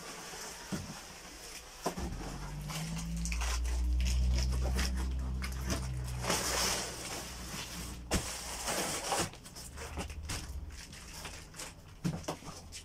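A large cardboard box scraping and rustling as it is pulled out and lifted, with scattered knocks and clicks. A low rumble swells and fades in the middle.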